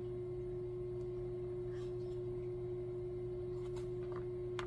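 A steady single-pitch hum, with a few soft taps as a cardboard board-book page is turned near the end.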